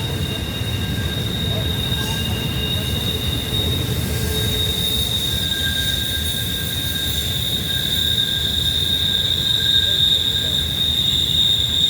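Intermodal freight train's steel wheels squealing against the rails as it rounds a sharp curve: a steady high-pitched flange squeal over the low rumble of the rolling train, getting louder in the last few seconds.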